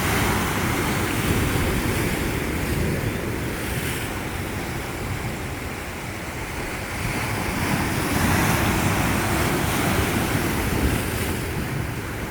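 Sea waves washing onto the shore, with wind buffeting the microphone. The surf swells louder twice, once at the start and again about eight seconds in.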